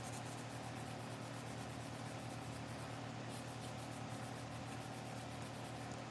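Twice As Sharp scissor sharpener with its diamond wheel spinning, a steady motor hum with an even hiss and a fast, regular flutter in the high range.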